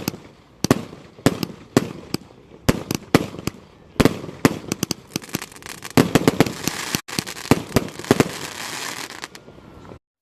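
Fireworks going off in a rapid, irregular run of sharp bangs that thickens into dense crackling in the second half, then stops abruptly near the end.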